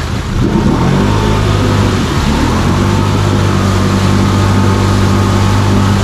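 Can-Am ATV engine revving up about a second in and held at high revs with its wheels spinning, as the quad, stuck in a deep mud hole, fails to climb out.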